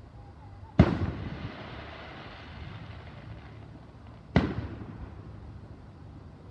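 Two aerial firework shells bursting about three and a half seconds apart, each a sharp bang followed by an echo that dies away over about a second.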